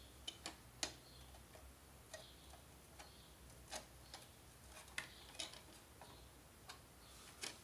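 A screwdriver working a small screw in the opened plastic-and-metal chassis of a video projector: about ten sharp, irregular clicks and taps over the few seconds, with a faint low hum behind them.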